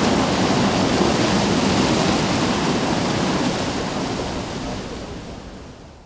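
River water rushing steadily down a wooden chute into a water-powered washing tub, a natural washing machine that cleans without detergent. The rush fades away over the last two seconds.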